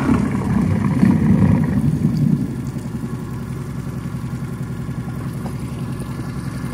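An engine running steadily with an even low throb, rising louder for the first two seconds or so and then settling.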